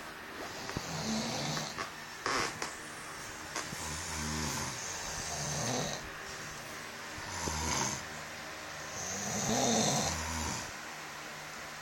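Snoring: a series of rasping snores, one every two to three seconds, with a couple of sharp snorts about two seconds in.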